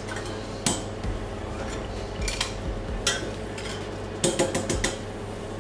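Metal tongs clinking against jar lids and a steel saucepan as the lids are set upside down in water to be sterilised: a handful of sharp clinks, several close together near the end.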